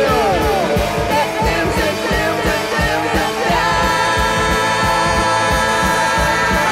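Rock music with singing over a steady drum beat, with long held notes in the second half.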